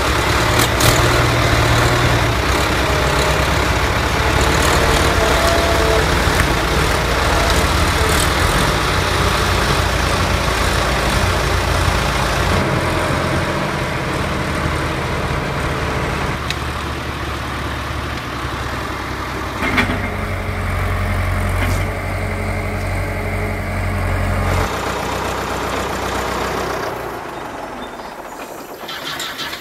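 Diesel engine of a Ford County 754 timber tractor running steadily, its sound changing abruptly a few times and dying away in the last couple of seconds, with a sharp click about two-thirds of the way through.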